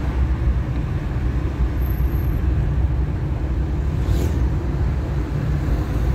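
Steady low engine and road rumble inside a moving car, with a brief faint hiss about four seconds in.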